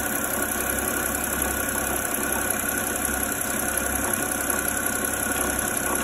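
BMW N52 3.0-litre inline-six idling steadily, with a rattle from the accessory belt drive. The rattle is the sign of a failed one-way clutch in the alternator's overrunning pulley, which makes the belt bounce.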